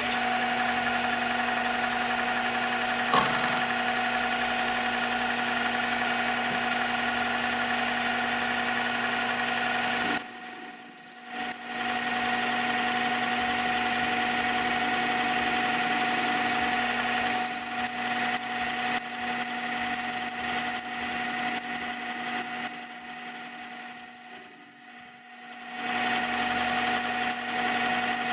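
Metal lathe running steadily, its gearing giving a constant hum and whine, while a cutting tool works the end of a spinning steel tube. About ten seconds in, and again from about seventeen seconds until near the end, a high steady squeal and a louder rattle rise over the machine, typical of the tool biting into the metal.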